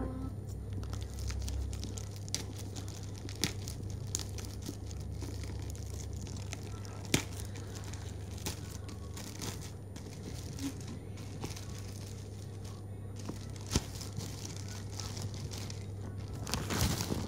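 Clear plastic parcel wrapping being torn and peeled open by hand, crinkling continuously with scattered sharp snaps and a louder burst of crinkling near the end.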